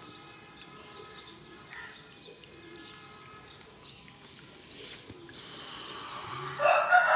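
Rooster crowing, the loud crow starting near the end after a few seconds of faint background sound.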